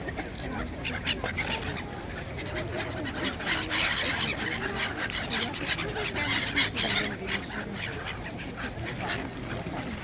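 A flock of gulls calling, many short overlapping calls, busiest from about three and a half to seven seconds in, as they swarm around people feeding them. Crowd chatter runs underneath.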